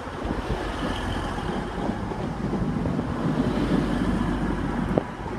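Class 185 diesel multiple unit running into the platform: a steady diesel engine and wheel rumble that swells slightly partway through, with a faint high squeal about a second in and a single knock near the end.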